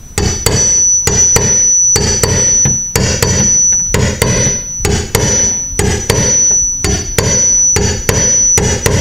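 Hammer tapping on a tool held against a steel door, about three blows a second, each with a metallic ring, denting the old screw holes in slightly so filler can sit below the surface.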